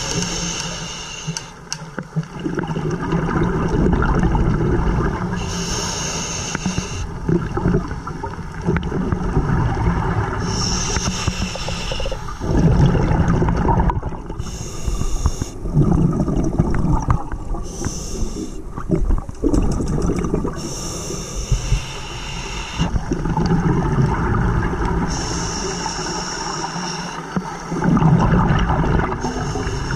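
Scuba diver breathing through a regulator underwater: a hissing inhale every few seconds, each followed by a louder, rumbling rush of exhaled bubbles.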